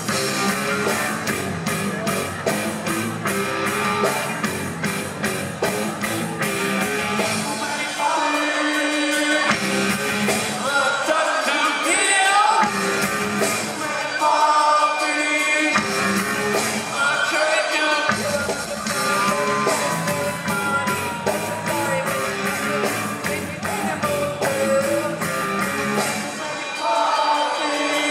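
Live rock band with bass guitar, electric guitar and drums, playing a driving heavy riff; a man starts singing about eight seconds in. Through the verse the low end drops out for stretches while the drums and voice carry on.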